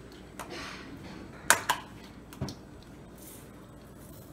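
A few sharp plastic clicks and taps from a spice jar and a ring of plastic measuring spoons as seasoning is measured out, two close together about a second and a half in and one more a second later.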